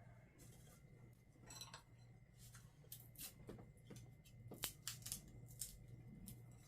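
Faint scattered clicks and rustles of small objects being handled, over a low steady hum.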